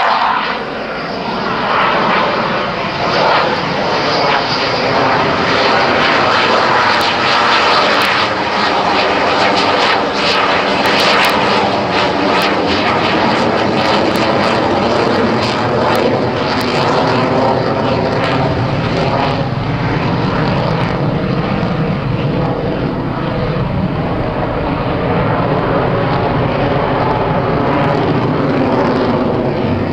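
Dassault Rafale fighter's twin Snecma M88 jet engines running loud during low display manoeuvres. The jet noise is continuous, and its pitch sweeps up and down as the aircraft passes and turns overhead.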